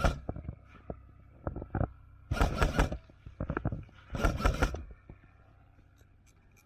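Two short bursts of scraping noise, about two seconds apart, among scattered light clicks.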